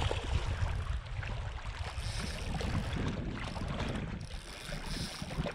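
Wind rumbling on the microphone over small waves lapping against shore rocks, with the splashing of a hooked trout at the surface about the start.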